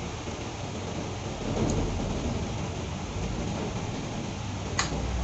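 Steady rushing noise with a low rumble that swells about a second and a half in, and a single sharp click near the end.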